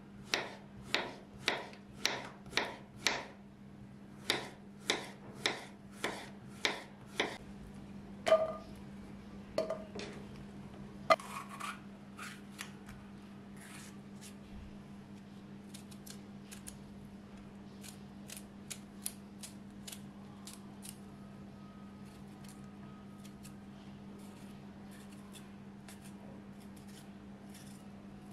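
Kitchen knife slicing a zucchini into rounds on a wooden cutting board, a crisp chop about twice a second with one short pause. About eight seconds in, a few louder knocks and ringing clinks, then only faint scattered cuts as a red pepper is sliced by hand over a metal pan.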